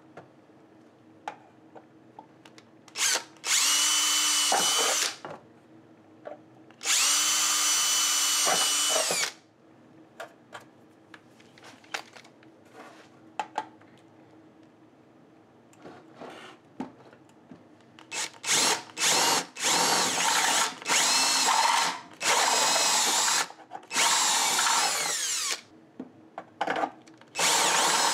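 Cordless drill boring holes through an appliance control panel, a step bit in the chuck for the later runs. There are two longer runs in the first third, then a string of short stop-start bursts about two-thirds of the way in as the holes are stepped wider.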